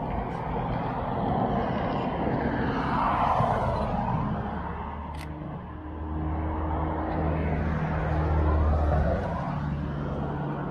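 Cars passing on the street: a rush of traffic swells and fades around three seconds in and again near nine seconds, with a steady low engine hum under the second. A single sharp camera-shutter click about five seconds in.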